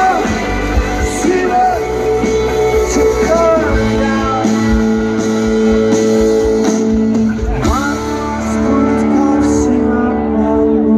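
Live rock band with singing over electric guitars; from about four seconds in the band holds a long sustained chord under the voice.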